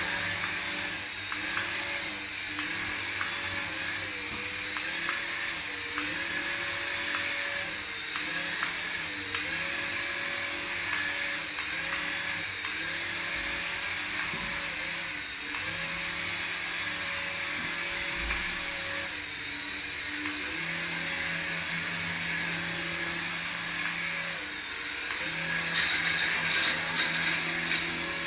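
Small electric motor of a radio-control toy whirring at a high pitch, its speed stepping up and down every second or two as the throttle is worked.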